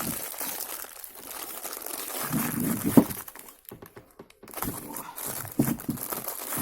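Crinkling and rustling of something being handled, with a quieter lull a little past the middle.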